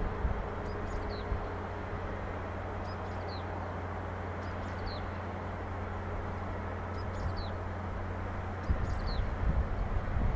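A bird repeating a short, high, falling call every second or two, over a steady low hum and wind on the microphone that turns gustier near the end.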